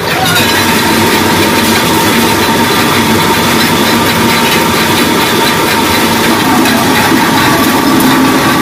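Motor-driven pillar machine for forming steel rings running steadily: a dense mechanical rattle with a steady high tone over it, starting suddenly.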